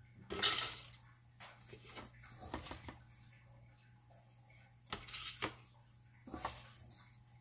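Soaked, drained rice being poured from a stainless steel bowl into a plastic blender jar: grainy rattling and sliding in several bursts, the loudest about half a second in and again about five seconds in.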